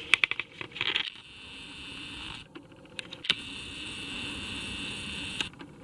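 Camera zoom motor whirring in two stretches, the second starting and ending with a sharp click, after a few quick handling clicks at the start.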